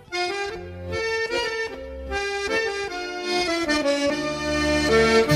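Instrumental background music: a tune of held melody notes changing every half second or so over a bass line, growing louder toward the end.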